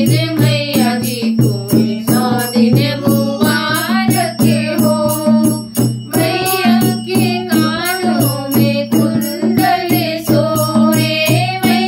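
A woman singing a Hindi devotional bhajan to the goddess, with a long, ornamented melody, while keeping a steady, even beat on a hand-played dholak.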